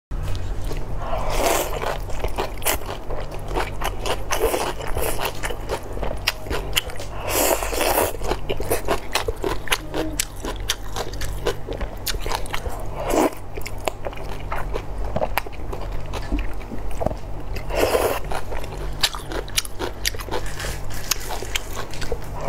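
Close-up eating sounds: crunching and chewing of shredded cucumber and carrot with wide clear noodles in sauce, a rapid run of wet clicks and crunches, with several louder noisy slurps of noodles spread through. A steady low hum sits underneath.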